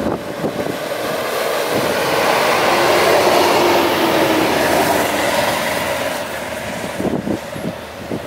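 Nissan Pathfinder's engine revving under load as its tyres spin and churn through deep snow. The noise swells over the first few seconds and eases off after about five.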